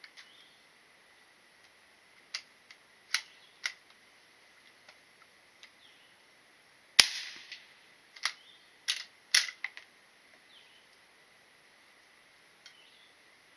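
Gunshots at a shooting range. Sharp cracks a few seconds in, then one much louder shot about seven seconds in that rings on briefly, followed by a quick run of four or five more cracks.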